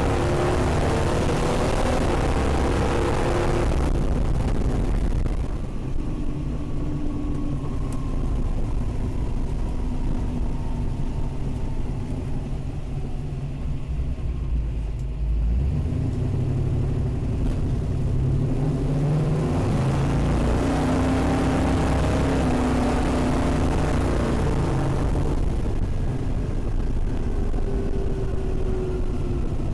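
A classic Mopar car's engine being driven: it pulls hard twice, near the start and again about two-thirds through, easing off between, with the engine note sliding down in pitch after each pull.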